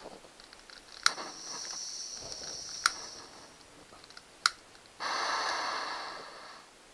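Handheld gas torch: three sharp clicks of the igniter, the first followed by a couple of seconds of hissing gas, then a louder hiss about five seconds in that fades away after a second and a half.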